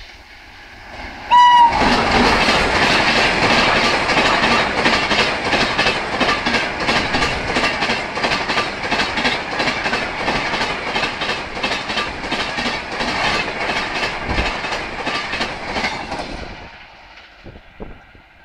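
Indian Railways WAP-7 electric locomotive gives a short horn blast about a second in, then the Mumbai Rajdhani Express passes close at about 130 km/h. The rush of wheels on rail comes with rapid, even clattering of the coaches' wheels over rail joints, and it drops away about two seconds before the end.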